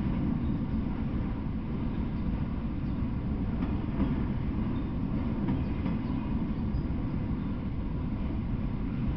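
Freight train of enclosed autorack cars rolling past: a steady low rumble of steel wheels on rail, with faint clicks now and then.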